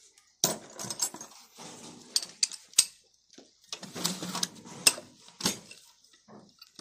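Metal hand tools and engine parts clinking and clanking during cylinder-head assembly: irregular sharp metallic clinks with short scraping and rubbing sounds between them.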